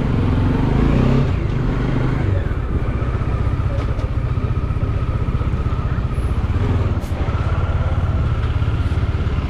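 Bajaj Dominar 400's single-cylinder engine running steadily as the motorcycle is ridden at low speed.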